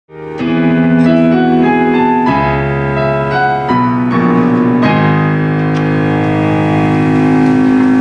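Slow keyboard music: sustained chords changing every second or so, with a melody stepping upward, then settling on one long held chord about five seconds in.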